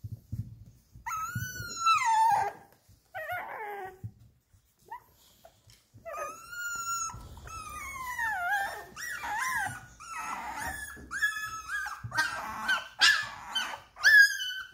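A litter of boxer puppies whining and squealing in high-pitched calls that slide downward in pitch: single calls at first, then several puppies crying over one another almost without a break from about six seconds in.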